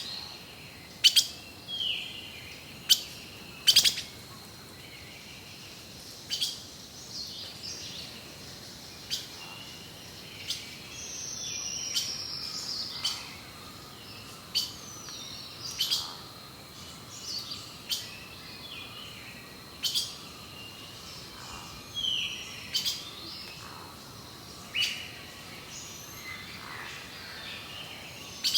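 Birds calling: a string of short, sharp chirps, many with a quick falling whistle, coming about once a second over a faint steady background.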